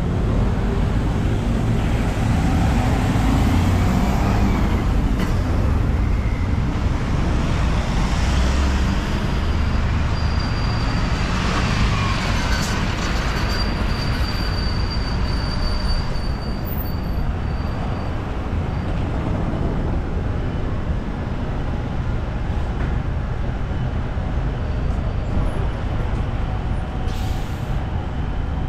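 Busy city street traffic: buses and cars passing with a steady low engine rumble and tyre noise. A thin high whine holds for several seconds near the middle.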